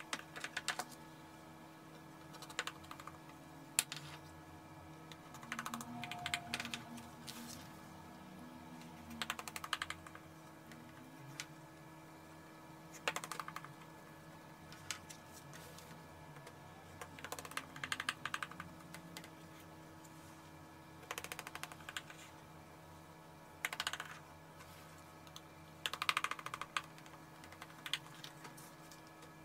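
Kitchen knife cutting through a baked revani in a metal baking tray, the blade clicking and scraping against the tray in short runs of quick clicks every few seconds, over a faint steady hum.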